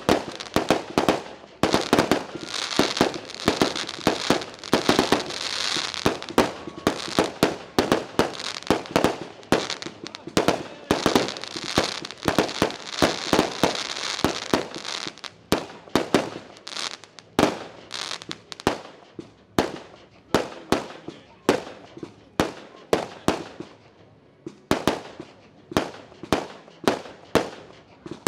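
Fireworks going off in a rapid string of sharp bangs, with a crackling hiss through roughly the first half. In the second half the bangs thin out to about one or two a second.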